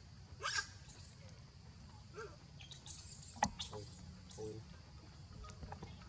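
Infant long-tailed macaque squealing in several short, very high-pitched calls, most of them clustered between about three and four seconds in. A sharp click, the loudest sound, comes about three and a half seconds in.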